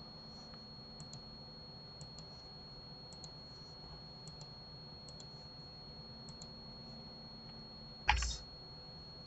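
Faint single clicks of a computer mouse and keyboard, roughly one a second, over a steady faint hum. A short, louder thump comes near the end.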